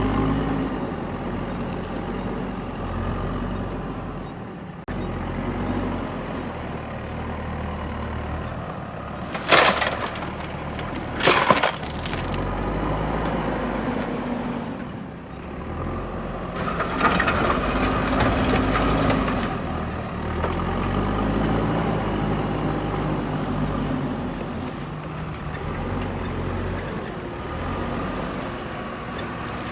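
Backhoe loader's diesel engine running and revving up and down as it works, with two sharp bangs about ten and eleven seconds in.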